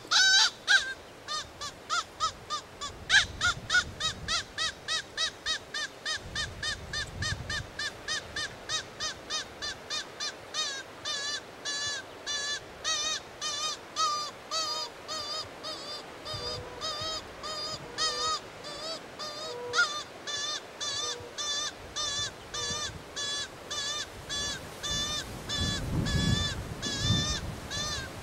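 A predator call for luring foxes, sounding a long, even run of short pitched squeals, about three to four a second, that turn warbling about halfway through.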